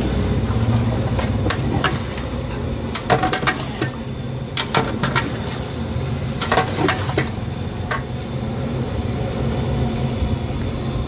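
Metal utensils clinking and scraping against a cooking pot, with a cluster of sharp knocks between about three and eight seconds in. Under them runs a low steady rumble that eases after the first two seconds.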